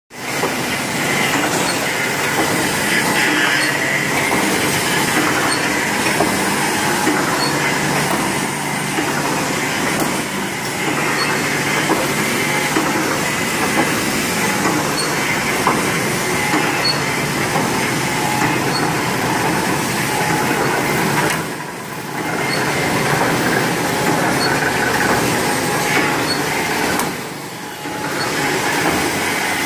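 Automatic welded wire mesh machine running at production speed: a steady, dense mechanical clatter from its welding and mesh-feeding cycle. The level dips briefly twice, about two thirds of the way through.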